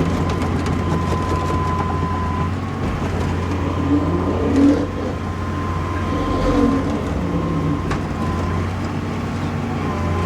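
Excavator's diesel engine running steadily under a constant high whine, swelling louder twice, about four and six and a half seconds in.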